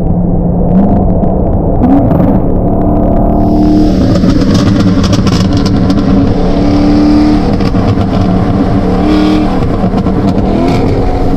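Modified C7 Corvette Grand Sport's V8 exhaust under hard acceleration alongside: the engine note climbs in pitch about a second in, is at its loudest through the middle, then eases near the end.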